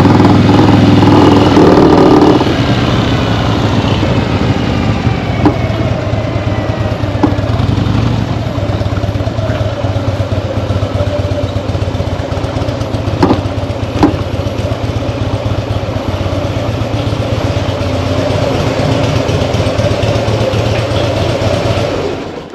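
Harley-Davidson Fat Bob's Twin Cam 96 V-twin engine running, louder for about the first two seconds and then settling to a steady run, with a few sharp knocks along the way. The owner suspects worn motor mounts behind the bike's vibration and rattling.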